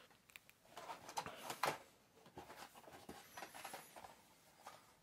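Faint handling of plastic blister-pack cards and cardboard: scattered rustles and small clicks and taps as packs are slid out of the box and picked up.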